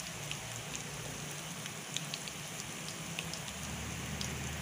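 Hot oil sizzling in a frying pan of green chillies, garlic and curry leaves with chilli powder just added, with scattered small crackles and pops.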